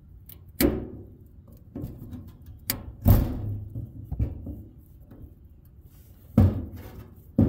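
A handful of sharp knocks and clunks of tools and parts being handled against the car's underside while the fuel lines are being disconnected. The loudest comes about three seconds in.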